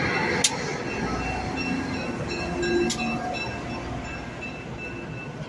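Passenger train pulling out slowly, its stainless steel coaches rolling past with a steady rumble of wheels on rail and a thin high wheel squeal. There are two sharp clacks, about half a second and about three seconds in, and the sound fades as the train moves off.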